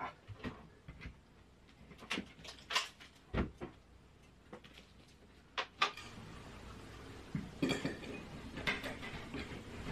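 Octagonal electrical box being handled and pushed up into a hole cut in a drywall ceiling: scattered light clicks and knocks, with some scraping near the end as it seats. A faint steady hum sets in about six seconds in.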